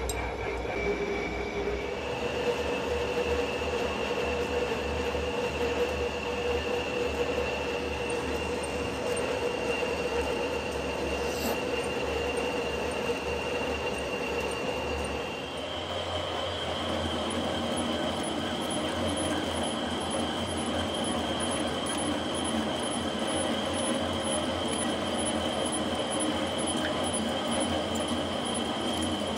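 Metal lathe running while a single-point tool cuts threads into the steel shank of a cast crane hook: steady motor and gear noise with a constant high-pitched whine over it. About halfway through the whine steps a little higher in pitch.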